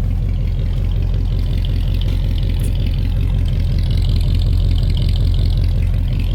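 A 1980 Dodge D300's 318 V8 idling steadily with a rough, uneven beat. The roughness comes from its aftermarket torque cam.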